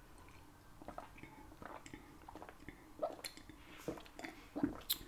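Faint gulping and swallowing of a person drinking from a glass, with small wet mouth sounds, a little louder over the last couple of seconds.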